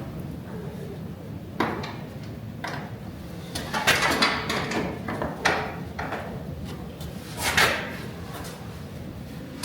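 A series of short scrapes and knocks from metal prototype parts being slid and set in place. The loudest come about four seconds in and again about seven and a half seconds in, over a steady low hum.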